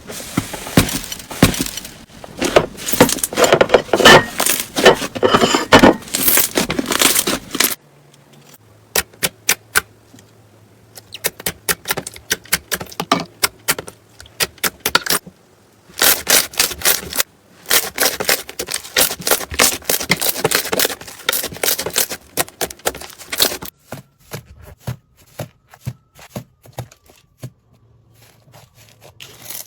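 Crunchy slime being squeezed and pressed, giving a dense crackling of many small pops. It comes in two long spells, with slower, separate pops between and near the end.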